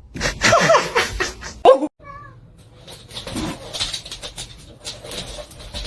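A cat meowing, several short, bending calls over the first couple of seconds. The sound then cuts out abruptly and gives way to a steady, noisy background.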